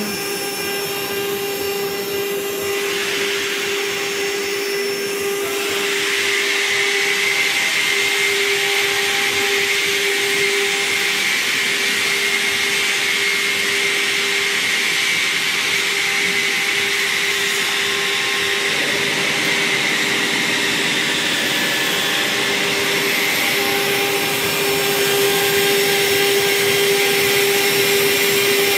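CNC wood router spindle running with a steady whine while its bit carves a relief into wood, the cutting hiss growing stronger a few seconds in and again near the end.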